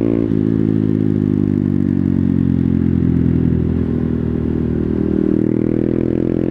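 Honda Grom's 125cc single-cylinder engine running on the move, with a shift in the engine note about a third of a second in, then holding a nearly steady pitch.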